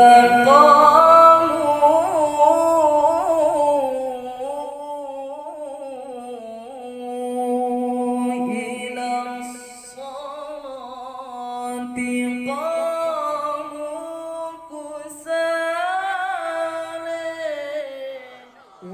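A young male qari reciting the Qur'an in the melodic tilawah style of Pakistani haflah reciters. He holds long, ornamented notes in several long phrases, with short breaks between them.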